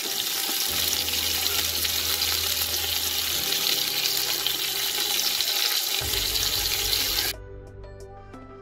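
Chicken pieces sizzling in hot oil with ginger-garlic paste, a steady loud hiss. The sizzle cuts off suddenly about seven seconds in, leaving soft background music.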